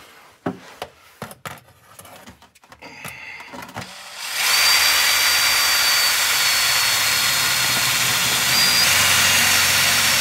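DeWalt cordless drill boring a drain hole into the pan of a Ford AOD automatic transmission, which has no drain plug. A few light knocks come as the bit is set against the pan. The drill starts about four seconds in and runs steadily with a high whine, its tone shifting near the end.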